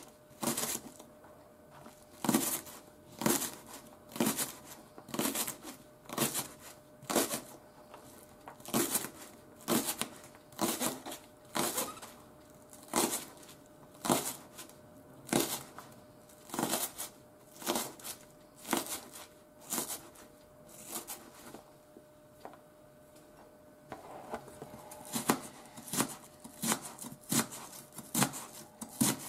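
Kitchen knife chopping green onion on a wooden cutting board: steady knife strikes against the board, about one or two a second, thinning out briefly about three quarters of the way through. A faint steady hum runs underneath.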